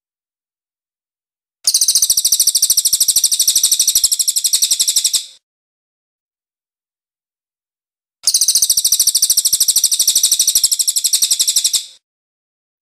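Cililin (crested jay) singing two loud, high, rapid rattling trills of about three and a half seconds each. The first starts about two seconds in and the second past the middle, with silence between them.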